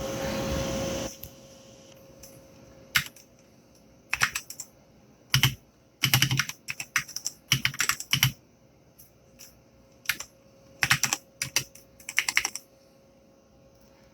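Typing on a Keychron K6 mechanical keyboard with brown optical switches and PBT double-shot keycaps: keystrokes come in short, uneven flurries with pauses between them. A one-second burst of noise opens the clip, and a faint steady hum runs underneath.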